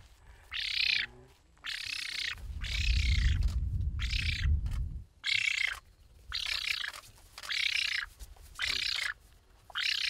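Young black-faced spoonbill giving a run of harsh, wheezy calls, about one a second, each around half a second long.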